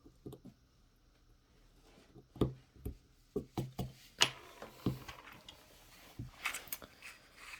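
Scattered small clicks and knocks, with faint scraping between them, as a screwdriver and an old 3/8 inch ratchet are handled to get at the gunked-up Phillips screws holding its front plate.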